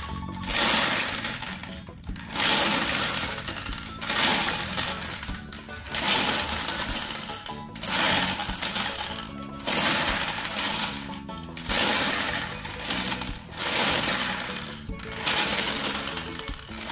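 Glass marbles rattling and clattering inside the turning plastic drum of a Bruder Scania toy cement mixer truck and rolling out down its chute. The rattle swells and fades about every two seconds.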